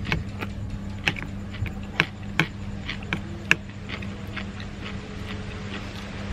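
Metal spoon and fork clinking and scraping against a glass plate of rice, in irregular sharp clinks, over a steady low hum.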